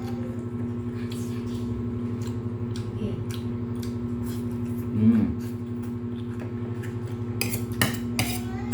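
Dishes and cutlery clinking during a meal: scattered light clicks, with a quicker cluster of sharper clinks near the end, over a steady low hum.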